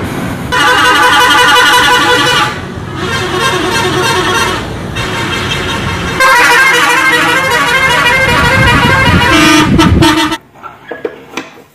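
Indonesian coach buses sounding their multi-tone musical 'telolet' horns: a quick repeating tune of several notes in two long spells, the second starting about six seconds in, over the rumble of the passing buses. The horns cut off abruptly about ten seconds in.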